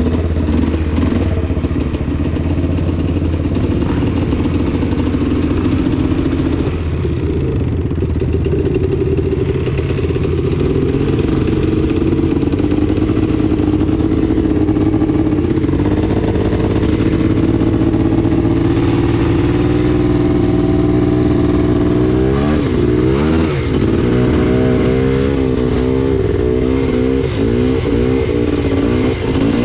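Polaris Scrambler 400 ATV's two-stroke engine running steadily on the trail, its pitch rising and falling several times near the end as the throttle is worked.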